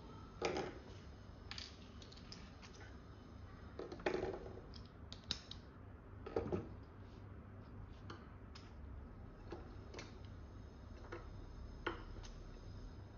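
Irregular light clicks and knocks of hand tools, screws and small parts being handled as a motor is fitted to a drone's boom, with a few louder knocks about half a second, four seconds and six and a half seconds in. A low steady hum runs underneath.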